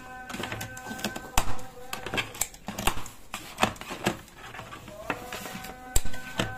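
Knife cutting through a whole fried fish on a metal serving tray: irregular clicks, taps and crunches, a few each second, as the blade goes through the fish and strikes the tray.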